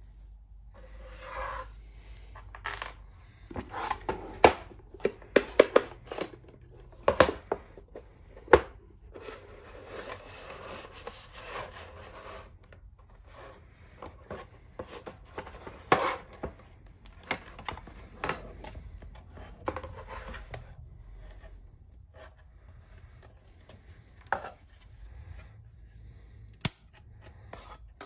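Handling a metal electronics enclosure by hand: scattered clicks and knocks of small screws and metal panels being set down. About ten seconds in there is a scraping slide of about three seconds, metal rubbing on metal as the lid is worked off the case.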